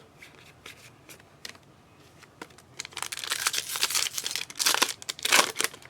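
Trading-card pack wrapper crinkling and tearing as a pack is opened. A few light clicks and rustles come first, then about three seconds in the crinkling becomes dense and steady, loudest near the end.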